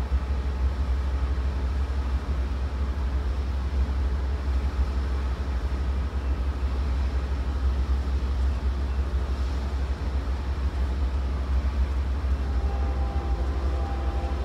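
Amtrak GE Genesis diesel-electric locomotive idling at a standstill, a steady low rumble. A few faint steady tones join it near the end.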